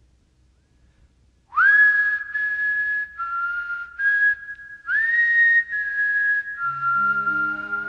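A person whistling a slow melody in a few long held notes, the first swooping sharply up into pitch about a second and a half in and another swooping up about halfway through. Near the end low instrumental notes enter beneath the whistling as accompanying music.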